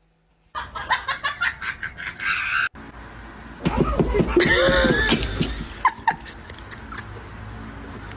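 Laughter in short rapid bursts, cut off abruptly about three seconds in, followed by more laughter rising and falling in pitch.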